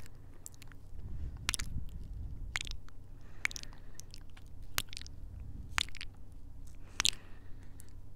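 Soft kisses made right against a Tascam handheld recorder's stereo microphones: a string of sharp, wet lip smacks about every half second, over a low rumble.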